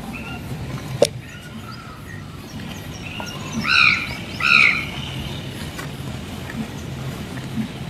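A bird calling, with faint calls early on, then two loud calls a little under a second apart about halfway through. A single sharp click comes about a second in, over a steady low background hum.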